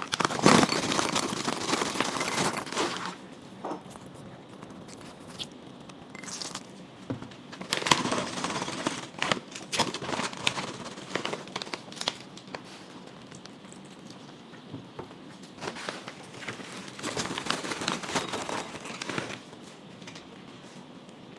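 Crinkling and crackling from a plastic bag of freeze-dried poultry cat treats and the dry treats themselves. It comes in three bursts of a few seconds, near the start, in the middle and near the end, with scattered crisp clicks between.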